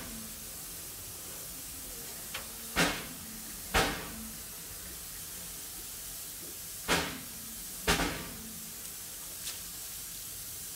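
A steady hiss from a steam locomotive taking on water from a water column's hose. Over it come four sharp, loud bursts in two pairs, each pair a second apart: one pair about three seconds in, the other about seven seconds in.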